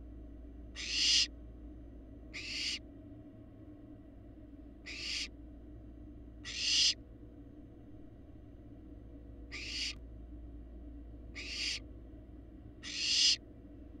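Barn owl fledglings giving rasping hiss calls, the food-begging 'snore' of young barn owls: seven separate calls, each about half a second long and swelling in loudness, over a steady low hum.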